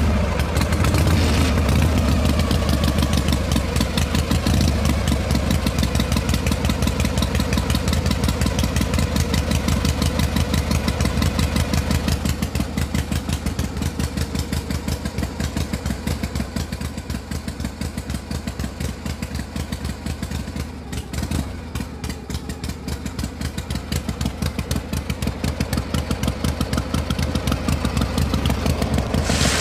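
Small single-cylinder stationary engine sound, running steadily with a fast, even putter.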